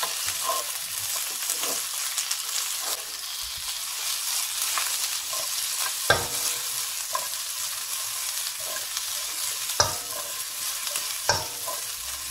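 Mixed vegetables sizzling in hot oil in a non-stick wok as they are stir-fried with a spatula, a steady frying hiss with scraping stirs. A few sharp knocks stand out, the loudest about six, ten and eleven seconds in.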